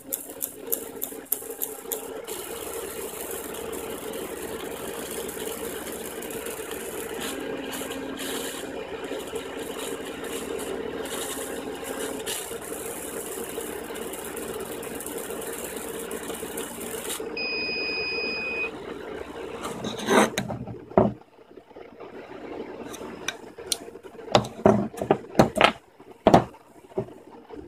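Laser cutter cutting half-inch plywood with its air assist blowing: a steady hiss, with a run of quick ticks in the first two seconds. About seventeen seconds in, the machine gives one steady electronic beep lasting over a second. From about twenty seconds on, wooden pieces knock and rattle as the cut-out is lifted from the bed.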